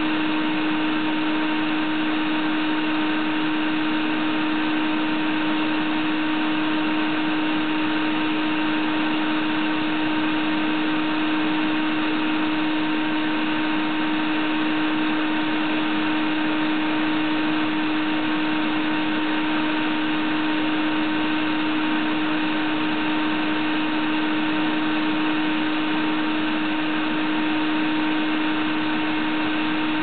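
Shop vac running steadily at a constant pitch with a strong hum, its hose end drawing air from the entrance of a ground wasp nest to suck up the wasps.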